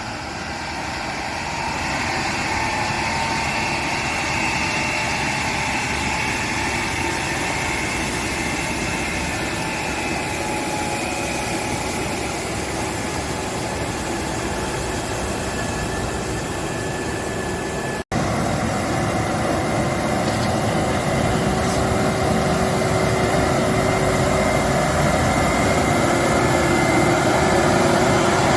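Engines of heavy road-construction machinery running steadily. About two-thirds of the way through, the sound breaks off for an instant, then resumes slightly louder with a steady hum.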